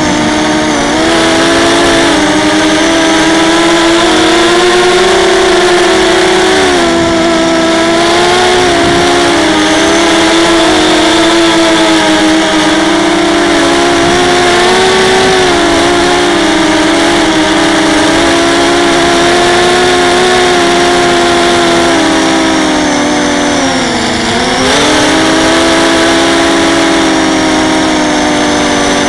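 Brushless motors and propellers of a ZMR250 racing quadcopter, heard up close from its onboard camera: a loud, steady buzzing whine whose pitch wavers with the throttle. The pitch drops briefly about a quarter of the way in and again near the end.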